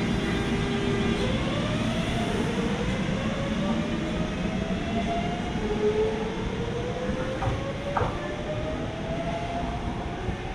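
Tobu 100 series Spacia limited express electric train accelerating away from the platform: a motor whine rises steadily in pitch, drops back and rises again, over the rumble of the train on the track. A short click sounds about eight seconds in.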